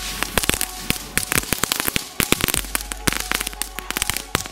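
Small Category 1 crackling fireworks (crackling bits) going off in a rapid, irregular string of sharp pops and cracks.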